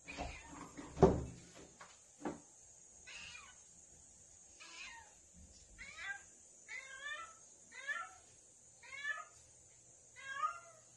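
Female domestic cat in heat calling: a string of short meows, about one a second, from about three seconds in, the calling of a cat in season for a tom. Before that come a few knocks, the loudest a thump about a second in.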